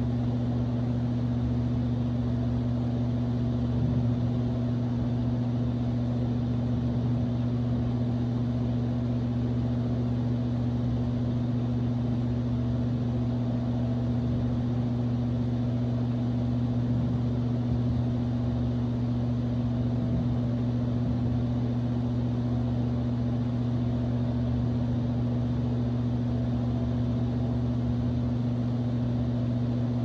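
Electric fan running steadily: a constant low hum over an even rush of air.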